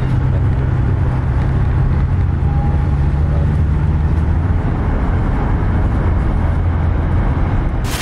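Steady drone of a vehicle travelling at speed on a highway, heard from inside: a low engine and tyre rumble with road hiss.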